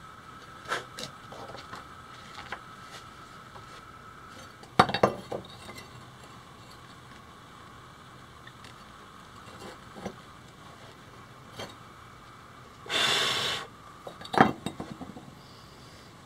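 Handling noise on a wooden workbench: a few scattered knocks and clinks as a plastic part and tools are moved and set down, the loudest about five seconds in and another near the end, with a brief rushing scrape just before that last one.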